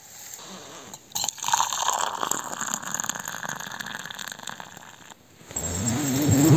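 Water poured from a pot into a steel cup, a steady splashing stream that starts about a second in and stops suddenly near five seconds. About half a second later comes a louder, low, wavering pitched sound.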